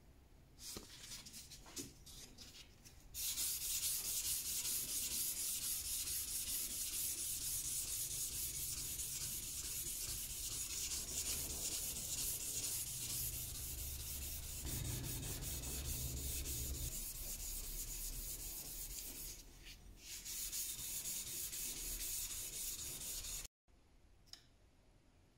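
Fine-grit sandpaper rubbed by hand over a steel knife blade in quick back-and-forth strokes: a steady scratchy hiss. It starts about three seconds in after a few light handling clicks, dips briefly near the end, and then stops abruptly.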